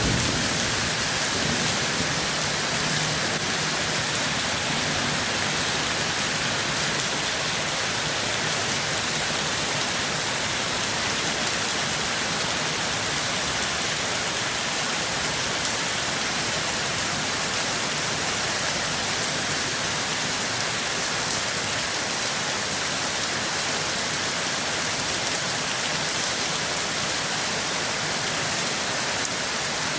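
Steady, even rain falling on a surface.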